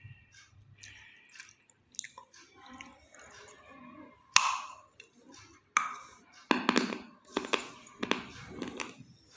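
A person biting and chewing pieces of half-roasted red clay close to the microphone. Two sharp crunching bites come about four and a half and six seconds in, followed by a run of crunchy chewing.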